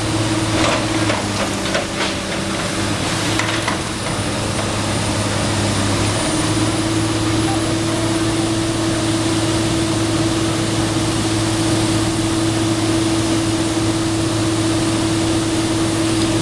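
Komatsu PC290 NLC hydraulic excavator's diesel engine running with a steady drone. Its note shifts for a few seconds near the start as the machine works, with a few knocks in the first four seconds.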